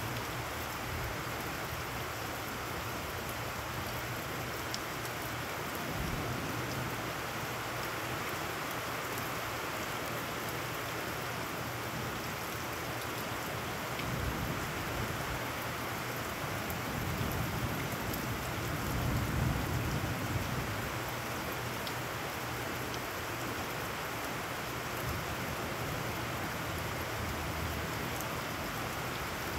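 Steady heavy rain falling on puddled ground. A low rumble swells about two-thirds of the way through.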